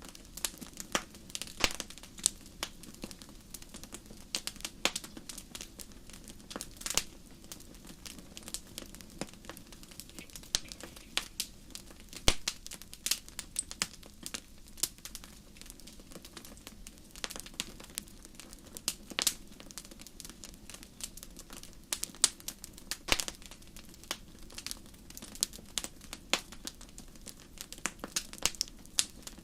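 Fire crackling, with irregular sharp pops and snaps, a few much louder than the rest, over a steady low rush.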